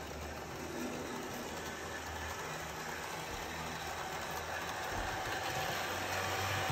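Electric model train running along its layout track, a steady low hum of motor and wheels on rail that grows slightly louder as the coaches pass close by.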